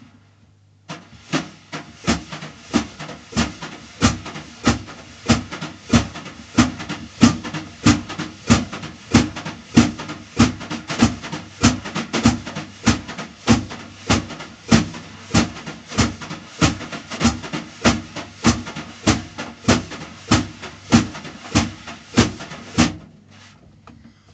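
Snare drum played with wire brushes: a steady swishing sweep under accented taps about twice a second, in an even groove. The pattern starts about a second in and stops shortly before the end.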